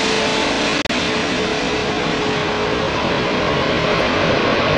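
Loud, steady music with electric guitar, with a brief dropout about a second in.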